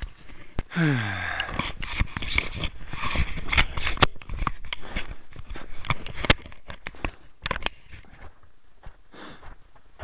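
Crunching and scraping in packed snow on a bridge deck, with many irregular clicks and knocks. There is a short falling groan about a second in.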